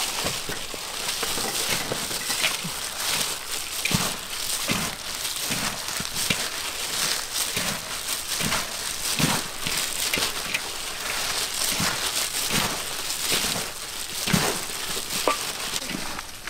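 Plastic-gloved hands tossing and squeezing a large metal bowl of crisp sliced fruit with chili paste: a steady wet, crunchy rustling and crackling, dotted with small clicks as the pieces are turned over.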